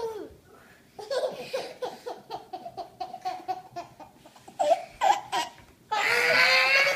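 Young children laughing in quick repeated bursts, with a few louder shrieks about five seconds in, then a long high-pitched squeal near the end.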